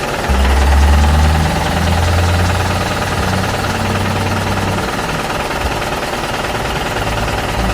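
Engine-like low drone with a steady pulsing rumble. It starts just after the beginning, is loudest for the first second and a half, then holds steady and eases off about five seconds in.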